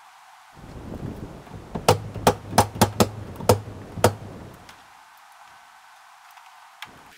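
Seven sharp knocks in quick, uneven succession over about two seconds: nails being driven to fasten a board of lap siding to the wall.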